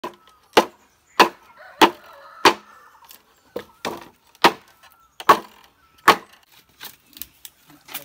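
Hatchet chopping into a bamboo pole: a steady series of sharp, hollow-wood blows, about one every two-thirds of a second, giving way to lighter taps near the end.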